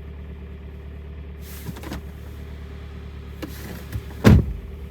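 Kia G4KD 2.0 inline-four petrol engine idling with a clanking piston knock, the sign of scuffed pistons and cylinders that the mechanic puts at two or three pistons at least. A loud thump comes about four seconds in.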